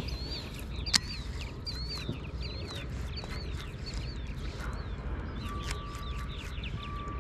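A bird calls over and over, a short wavering chirp about every two-thirds of a second, over a steady low background rumble. A sharp click comes about a second in, and a thin steady tone sounds briefly three times near the end.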